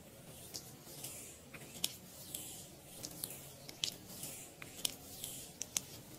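Fingertips spreading and massaging face cream over skin: repeated swishing strokes with many small sticky clicks and pops.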